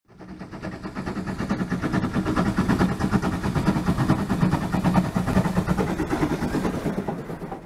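An engine running steadily at an even pitch with a rapid pulsing beat. It fades in over the first second and fades out near the end.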